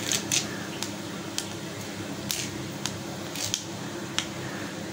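Fennel seeds and a bay leaf frying in hot oil in a nonstick pan, giving sporadic sharp pops and crackles over a faint steady hum: the seeds spluttering as the oil tempers them.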